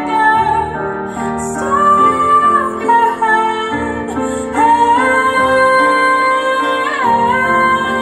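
Recorded music played back through Grandinote MACH2P hi-fi loudspeakers: a female voice sings long held notes over instrumental accompaniment.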